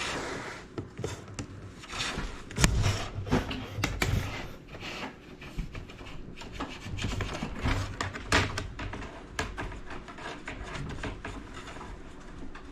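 Romex cable being pulled through a wall on a fishing line, rubbing and scraping in irregular drags, with scattered knocks and clicks.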